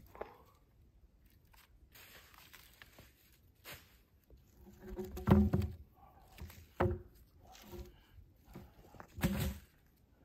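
Wooden logs knocking and thudding against each other and the rocks as they are shifted into place on stony ground, with dry leaves rustling underfoot. The loudest knock comes about five seconds in, with two more about a second and a half and four seconds later.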